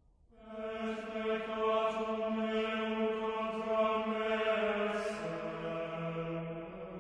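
Chant-like droning music: one long held note, rich in overtones, that starts just after the opening and steps down to a lower held note about five seconds in.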